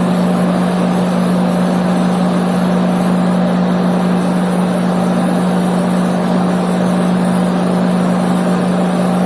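Car's electric radiator cooling fan running steadily: an even rush of air with a strong steady hum.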